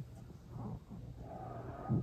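Human stomach growling: a gurgling rumble builds from about half a second in, warbling and with a brief thin squeaky note, and ends in a loud low rumble.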